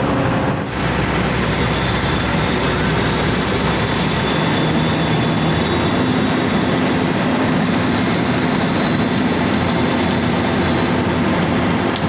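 Komatsu PC200 excavator's diesel engine running steadily.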